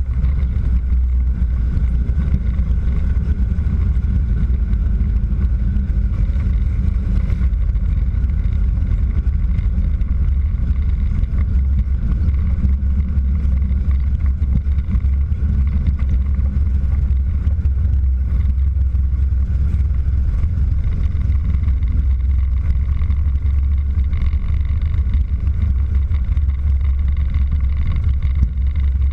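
Christen Eagle biplane's piston engine and propeller running steadily at low power as the aircraft taxis on the ground, a deep, even drone heard from inside the cockpit.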